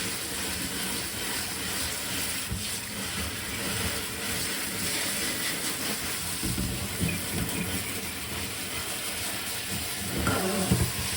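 Tap water running steadily into a sink, with a few knocks and clunks of handling about two thirds of the way in and again near the end.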